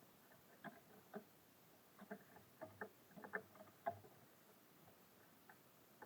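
Small birds pecking and hopping on a bird feeder: a scatter of faint, irregular taps and knocks, busiest in the middle.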